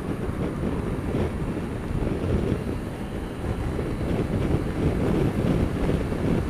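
Wind buffeting a helmet-mounted camera's microphone on a moving scooter: a steady low rush with the ride's engine and road noise mixed in underneath.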